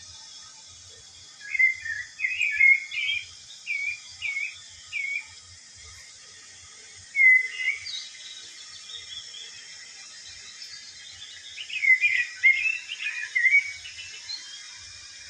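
Bird chirping: short whistled notes that curve up and down, a quick run of about eight starting a second and a half in, a single note around seven seconds in, and a tight flurry of chirps near the end, over a steady hiss.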